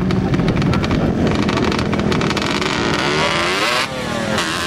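Off-road vehicle engine running hard at high revs. From about three seconds in the pitch swings up and down as the throttle is worked.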